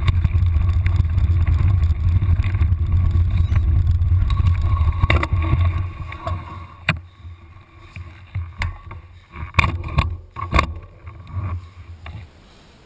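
Wind buffeting and trail rumble on an action camera's microphone as a mountain bike rides a dirt forest trail. About six seconds in the rumble drops away, leaving scattered clicks and knocks from the bike and camera as the rider slows and stops.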